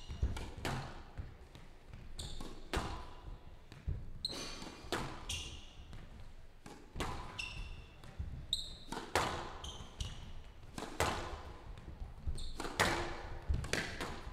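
Squash rally on a glass court: sharp smacks of the ball off rackets and walls about once a second, each with a brief ringing tail in the hall, and shoes squeaking on the court floor between shots.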